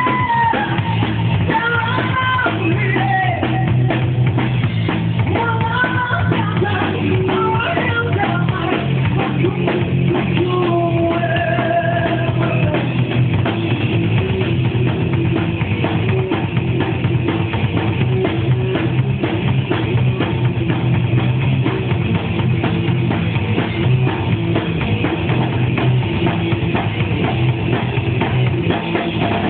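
Live rock band playing loudly, drum kit and electric guitar driving a steady beat, with a singer's melody over roughly the first half.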